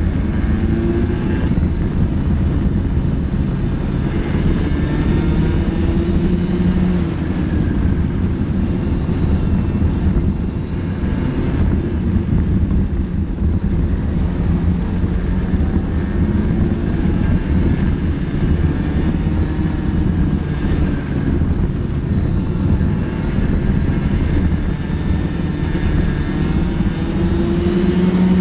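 Racing kart's engine heard from an onboard camera, revving hard and continuously at race pace, its pitch climbing on the straights and dropping back into the corners several times, over a heavy low rumble.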